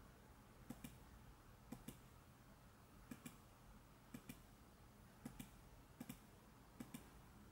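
Near silence with faint computer clicking: quick pairs of short clicks, about one pair a second.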